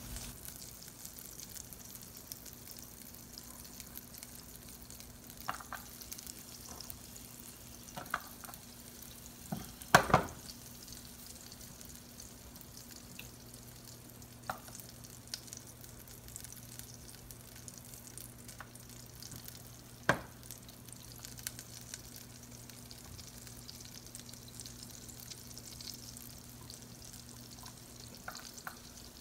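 Butter and peanut oil frying with a steady sizzle in a small nonstick saucepan, with chopped garlic frying in the fat. A few sharp clicks or knocks cut through, the loudest about ten seconds in and another about twenty seconds in.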